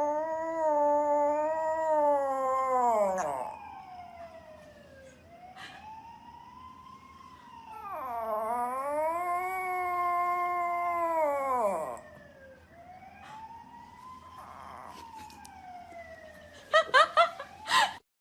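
An animal howling: two loud, long wailing howls of several seconds each that rise and fall in pitch, with fainter arching howls between them. Near the end come four short, loud cries in quick succession.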